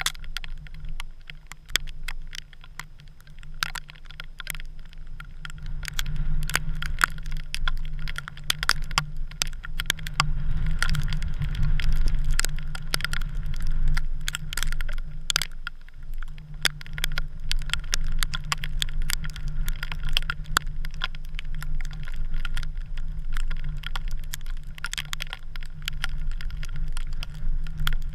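Wind of a snowstorm buffeting a camera microphone as a steady low rumble, stronger in the middle, with many irregular sharp ticks and clicks throughout.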